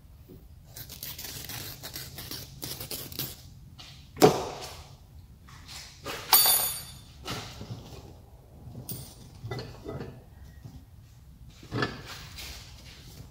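Yellow screen-printing mesh rustling and tearing as it is handled and cut with a razor blade. A sharp knock about four seconds in, a ringing metallic clink a couple of seconds later, then a few softer knocks.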